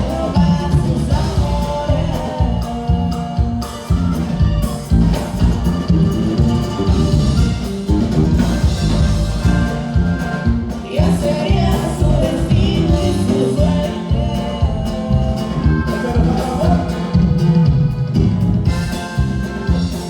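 Norteño band playing live with a singer, over a steady drum beat.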